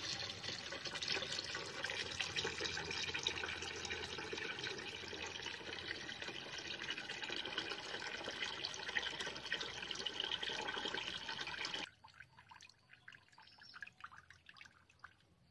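A stream of water pouring into a plastic bucket already partly full of water, a steady splashing rush. About twelve seconds in the flow drops suddenly to a thin trickle with scattered drips.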